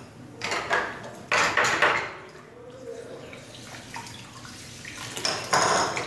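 Metal gas-stove burner parts being handled and washed in a sink of soapy water: clinks and splashing in three bursts, about half a second in, from about one to two seconds in, and again near the end.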